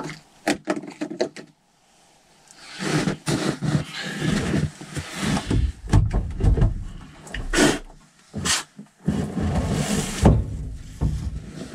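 A few sharp clicks at the car's charge port, then footsteps and jacket rustling close to the microphone as a heavy DC fast-charger cable is pulled out and carried over to the car, with more clicks and knocks from the cable.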